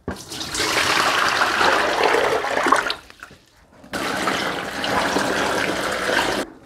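Water poured from a large plastic jug into a plastic tub of whole radishes and vegetables, splashing in a steady rush. The pour breaks off for about a second midway, then resumes.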